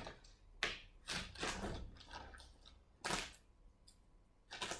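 Parcel packaging being handled and pulled at by hand: about five short scrapes and rustles with quiet gaps between them.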